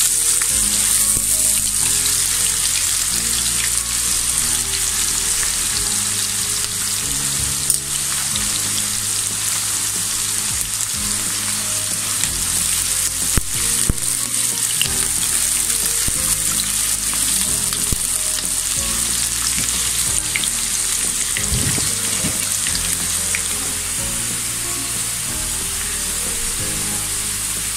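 Sliced onions sizzling steadily as they fry in plenty of hot oil in a nonstick wok, with a silicone spatula stirring them now and then. The onions are being fried until reddish-brown, as for the fried-onion topping of haleem.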